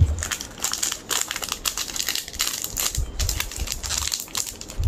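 Foil trading-card booster pack wrapper crinkling and crackling as hands grip, twist and pull at it to tear it open.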